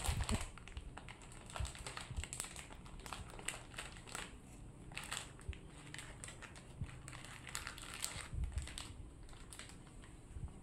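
Plastic biscuit bag and small foil-wrapped biscuit packs crinkling and rustling as a child's hands rummage through them, in irregular short crackles.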